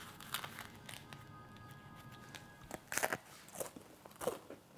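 Thin, crisp crust of a hollow balloon bread (gonggal-ppang) crunching and crackling as it is broken and bitten, in a few short, sharp crunches that come thicker and louder in the second half.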